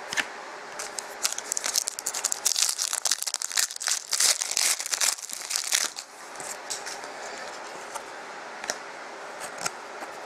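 A trading-card pack wrapper crinkling and tearing open, a dense crackle for the first several seconds, then a few light clicks as the cards are handled.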